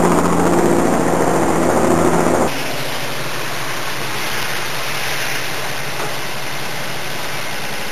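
Car engine idling with a steady hum. About two and a half seconds in the sound changes abruptly to a quieter, even rumble from inside the car.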